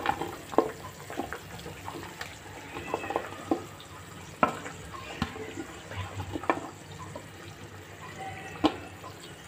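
Tomato-and-potato curry gravy bubbling at a boil in a pan, with scattered soft plops and knocks as cauliflower florets are dropped in.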